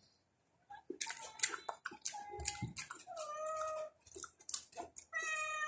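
A house cat meowing: a short meow about two seconds in, then two longer meows, one about three seconds in and one near the end. Faint clicks and taps come between the meows.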